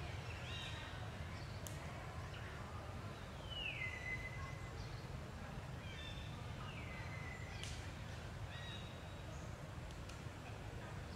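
Forest ambience: a steady low rumble with a few short high chirps, and twice a high call that falls in pitch and then holds its note briefly.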